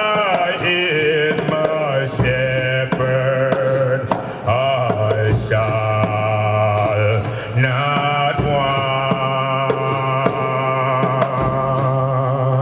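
Group of voices chanting a Rastafari hymn together in long held notes, over nyabinghi hand drums beating a steady pulse about once or twice a second.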